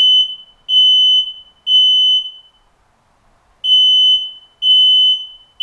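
Activated smoke alarm sounding its evacuation signal: loud, high-pitched beeps in groups of three, a pause, then three more. This three-beep pattern is the sign that the alarm has detected smoke.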